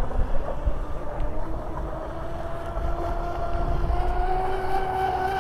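Proboat Zelos 48 RC catamaran running at top speed, its electric motors giving a steady high whine that rises a little in pitch about two-thirds of the way through.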